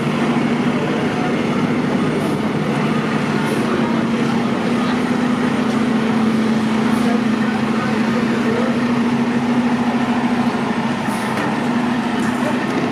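Large diesel vehicle engine idling with a steady, unbroken drone.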